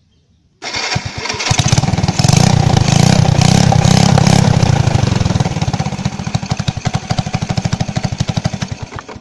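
Scooter engine started on its electric starter, catching within about a second now that the repaired one-way starter clutch engages the crankshaft. It revs, then the firing slows and fades until the engine stops near the end.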